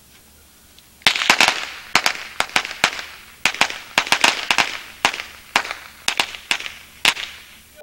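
Firecrackers going off in a rapid, irregular run of sharp pops, several a second, starting about a second in.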